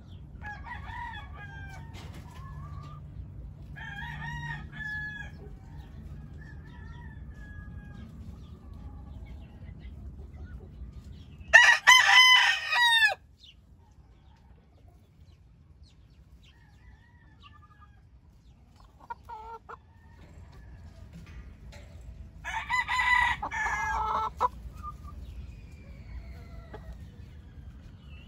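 Game roosters crowing: one loud crow a little before halfway through and another near the end, with softer short clucking calls before them.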